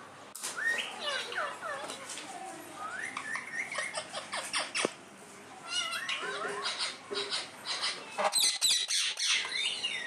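Rose-ringed parakeets chattering, with short gliding squawks and whistles mixed with sharp clicks. There is a short lull about halfway, and the loudest burst comes near the end.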